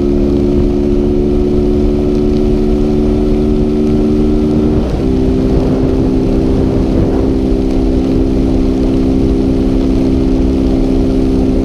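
Honda Fan 160's single-cylinder four-stroke engine pulling hard at steady high revs through an exhaust set up to sound like a BMW G 310. The pitch shifts briefly about five seconds in, as on a gear change, then holds steady again.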